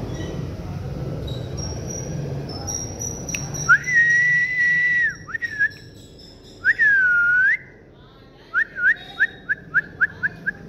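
A person whistling close by: a long held note, a dipping swoop, then a quick run of about ten short rising whistles. A low rumble sits underneath for the first few seconds.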